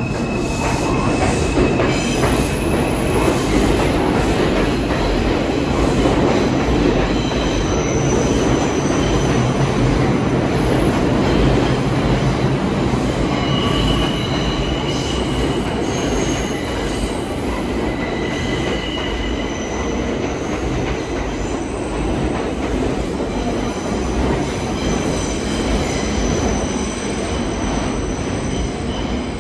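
New York City R142-family subway train running through the tunnel, heard from inside the car: a steady loud rumble of wheels on rail, with high-pitched wheel squeals that come and go.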